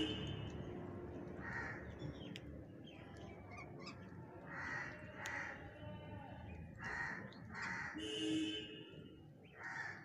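Harsh, rasping bird calls, short and repeated irregularly, about seven in all, with one longer call just after eight seconds.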